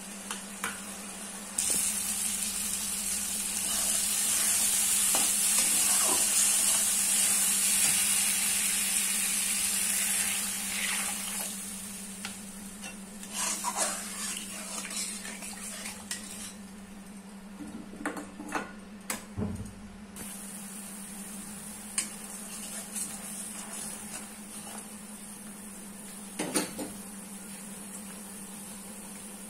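Curry gravy sizzling and bubbling in a metal karai, loudest for the first ten seconds or so and then quieter. A metal spatula scrapes and taps against the pan now and then. A steady low hum runs underneath.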